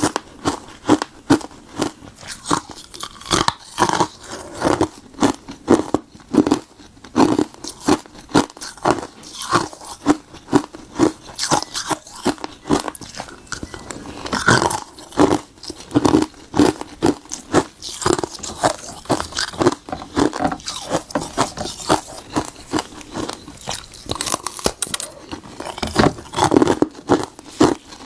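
Blocks of frozen bitter buckwheat tea being bitten and chewed close to the microphone: a steady run of sharp, hard cracks and crunches, several a second.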